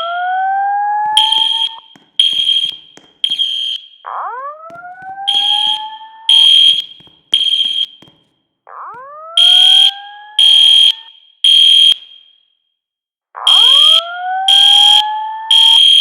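School fire alarm system sounding its evacuation signal. A rising whoop tone repeats about every four and a half seconds, each time with three loud, short, high-pitched horn blasts in the three-pulse temporal pattern. Four cycles play through.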